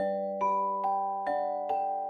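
Background music: a gentle tune of struck, bell-like notes, a new note about every half second over held chords.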